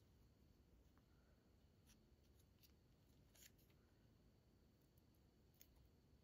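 Near silence, with a few faint, short ticks of small cardstock pieces being handled between the fingers.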